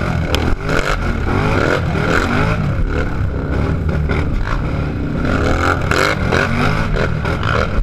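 A racing ATV's engine revs in quick, repeated surges as the throttle is worked over a rough, rutted dirt trail. The pitch rises again and again over a steady low rumble.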